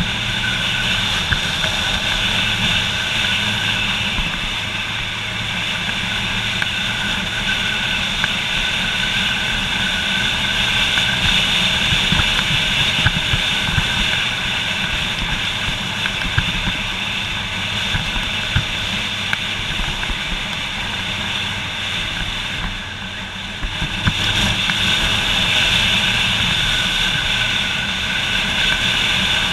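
Motorcycle engine running steadily under way, heard from on the bike, with road and wind noise. The engine eases off briefly about three-quarters of the way through, then picks up again.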